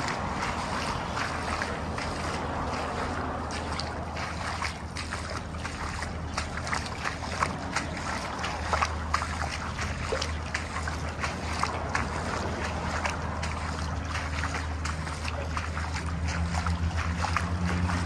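Footsteps scuffing and crunching on a gritty concrete floor, a few irregular steps a second, over a steady low rumble.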